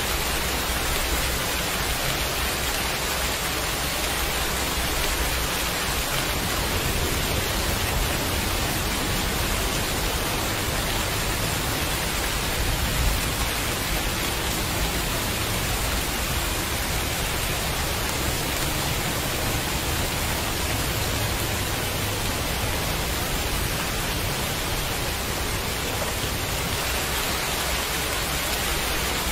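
Steady heavy rain: a dense, even hiss with a low rumble underneath.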